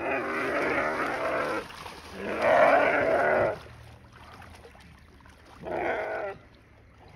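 Female nyala screaming in distress while a wild dog has hold of her: three long, wavering bleat-like cries, the middle one the loudest and the last one short.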